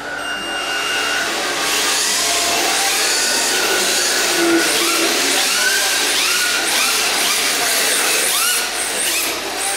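Electric motors of two rear-wheel-drive RC drift cars whining, each whine rising in pitch as the throttle is blipped, over and over, over a steady hiss.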